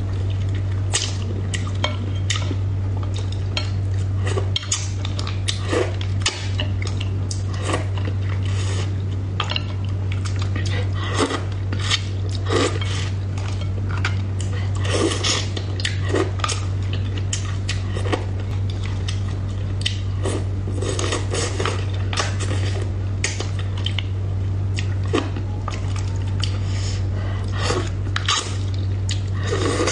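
Wooden chopsticks clicking and tapping irregularly against a bowl and a plastic cup while picking apart a braised fish head, with soft eating sounds, over a steady low hum.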